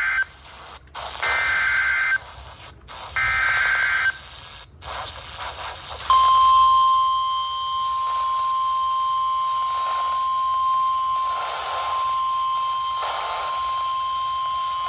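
NOAA Weather Radio Emergency Alert System broadcast over a radio receiver with static hiss: short warbling SAME digital header bursts, about a second each with short gaps, then about six seconds in the steady 1050 Hz warning alarm tone starts and holds, signalling that a new warning follows.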